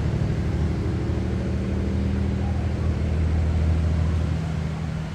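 A motor engine running steadily with a low hum, dropping away at the end.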